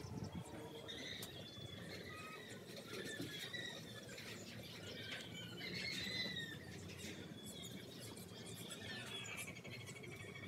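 Birds chirping, many short high calls scattered throughout over a faint outdoor background.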